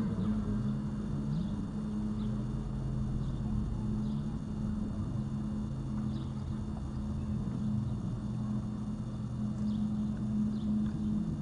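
Steady low hum under a rumble of wind on the microphone, with a few faint scattered ticks.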